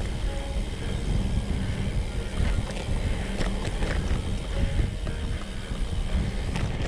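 Priority 600X trail bike on 29x3 tyres rolling over dirt singletrack: a steady low rumble of tyres and wind on the microphone, with scattered small knocks and rattles from bumps in the trail.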